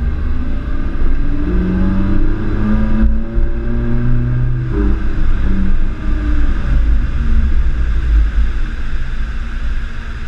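Sports car engine revving and accelerating hard, under a heavy low rumble. Its pitch climbs over the first few seconds, with brief breaks about three and five seconds in.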